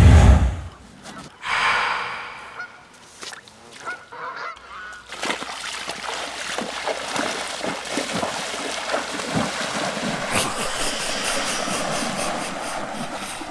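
A honk-like call in the first few seconds. Then, from about four and a half seconds in, lake water splashing continuously as a person wades fast into the shallows.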